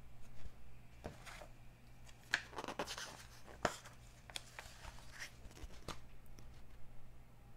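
Glossy paper pages of a flexible softcover magazine being handled and turned: irregular rustling and crinkling with a few sharp paper snaps, starting about a second in and dying down near the end.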